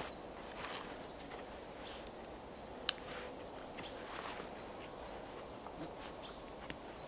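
Rustling of gear as a dog's harness saddlebags are loaded, with one sharp click about three seconds in. Small birds chirp briefly now and then.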